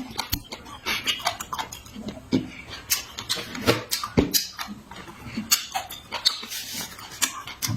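Close-up eating sounds: wet smacking, chewing and slurping of meat and noodles, in quick irregular clicks and smacks.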